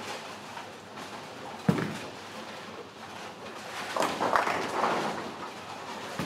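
Ten-pin bowling alley: a single heavy knock about two seconds in, then about a second of clattering around four seconds in, as of bowling pins being struck and scattered.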